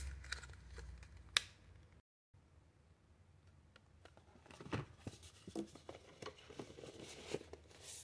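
Press-stud snap on a leather knife sheath clicking shut once, sharply, about a second and a half in. Later come light knocks and rustles of the sheathed knife and its cardboard box being handled.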